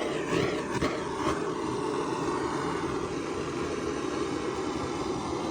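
Heat gun blowing a steady hiss of hot air onto automotive sound-deadening material to soften it, with a few light knocks in the first second and a half.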